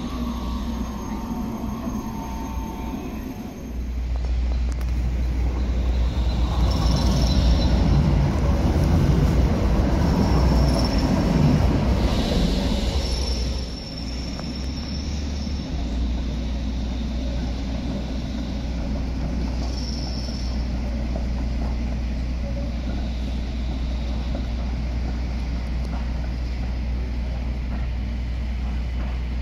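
Tram passing over street-track rails with a rumble that swells over several seconds, with several short high wheel squeals from the rails, over a constant low rumble.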